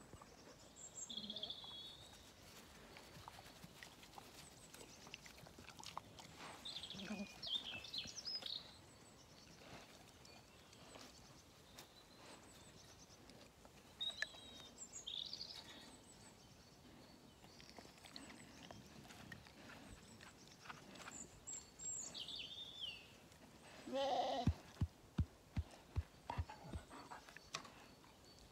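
Zwartbles lambs bleating now and then, close by. About 24 seconds in, a bleat is followed by a string of dull knocks.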